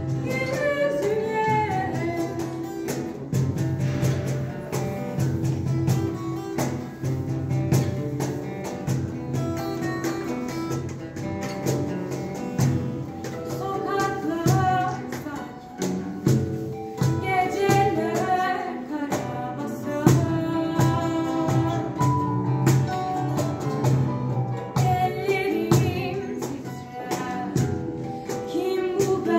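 A live song: a singer with instrumental accompaniment.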